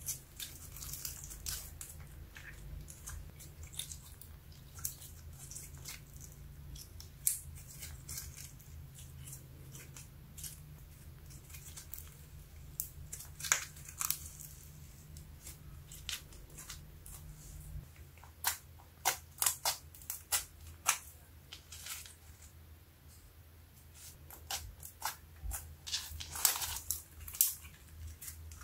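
Glossy glitter slime being squeezed, folded and stretched by hand, giving sticky wet clicks and crackles. There are two denser runs of quick pops, one a little past the middle and one near the end.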